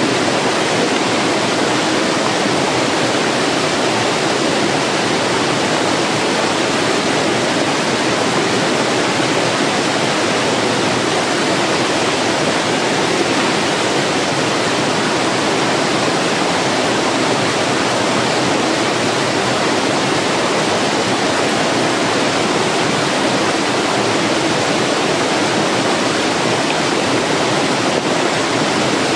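A small stream cascading over rocks, the water rushing with a steady, unbroken sound.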